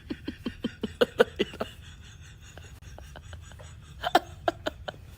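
Stifled, breathy laughter: a quick run of short bursts, about six a second, then a shorter run near the end.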